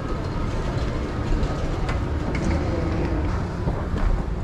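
Steady low rumble of airport terminal background noise while riding an escalator down, with a few faint clicks about halfway through.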